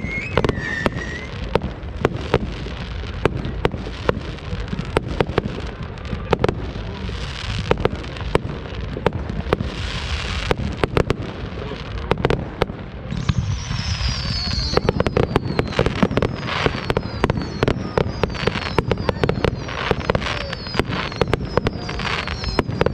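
Fireworks going off in a dense, steady run of bangs and crackles with bursts of hiss. From about halfway through, whistling shells add repeated falling whistles.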